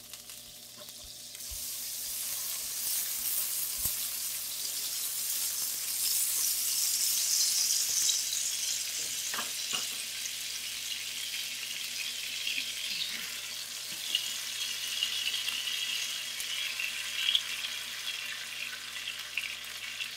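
Butter sizzling as it melts and fries in a hot nonstick frying pan: a steady hiss that swells after a second or so and turns crackly later.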